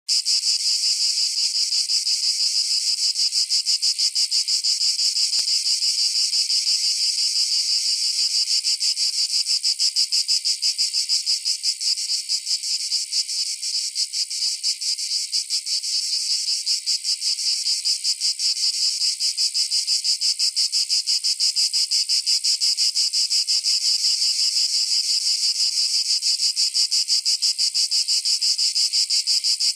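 Loud chorus of cicadas in forest: a steady, high buzz with a rapid pulse, unbroken throughout.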